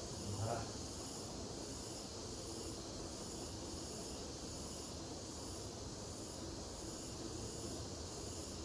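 Steady chorus of insects: a high hiss that pulses evenly, roughly twice a second.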